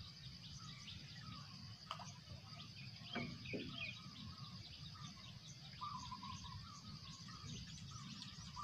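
Outdoor dawn chorus: many small birds chirping and calling over a steady high insect buzz, with a few clearer calls about six seconds in and a low rumble underneath.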